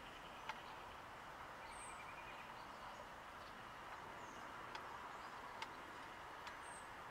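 Quiet outdoor ambience: a steady faint hiss with a few faint, short, high bird chirps and several sharp ticks scattered through it.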